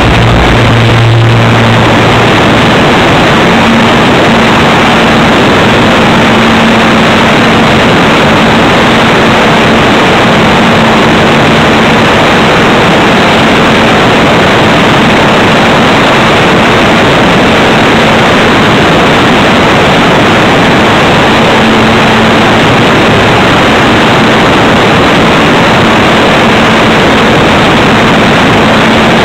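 Engine and propeller of a radio-controlled glider tug, heard loud and overloaded through a camera mounted on the aircraft, with much wind rush. The engine note steps up about a second and a half in, then runs steadily through the take-off roll and climb with a glider on tow.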